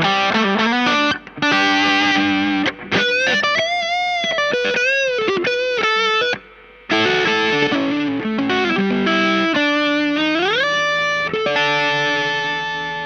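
Electric guitar played through the Space Sounds Spacecraft, a Rat-style distortion pedal: a distorted lead phrase of sustained notes with bends and vibrato a few seconds in. After a brief break, a note slides upward about ten seconds in, and a chord is left ringing and fading near the end.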